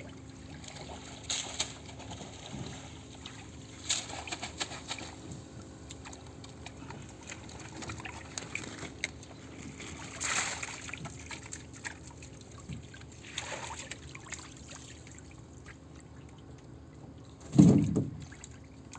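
Water splashing and trickling in short bursts as a mesh bait net of live shrimp is lifted from the water and emptied into the flooded bottom of a fiberglass boat. A heavy low thump near the end is the loudest sound.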